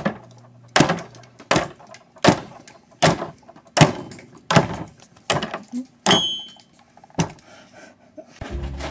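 A series of sharp knocks, about eleven, evenly spaced a little under a second apart. Low music notes come in near the end.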